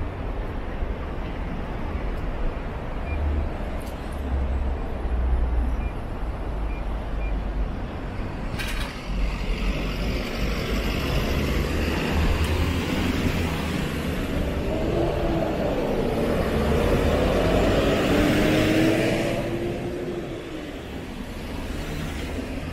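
Street traffic: a motor vehicle passes close, its engine note gliding up and down, loudest about three-quarters of the way through, then fading. There is a low rumble throughout and a single sharp click about nine seconds in.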